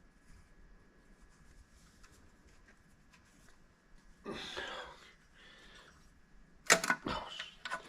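Quiet shop, then a brief scrape or rustle of handling about halfway in, followed by a quick run of sharp clicks and knocks near the end.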